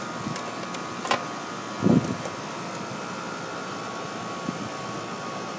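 Steady machine hum in the background, with a sharp click about a second in and a louder low thud about two seconds in, from a screwdriver and wires being handled at an air-conditioner contactor.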